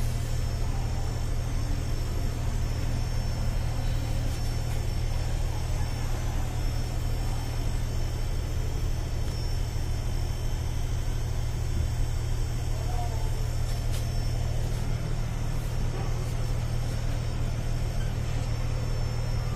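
Steady low drone of passenger-train machinery in the coach's electrical power-supply compartment, running without a break, with a few faint clicks.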